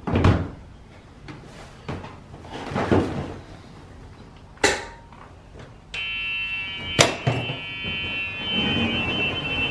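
Golf cart seat dropped back into place over the battery compartment with a knock, then knocks and clicks as a person climbs onto the seat. About six seconds in, a steady high tone starts suddenly and holds.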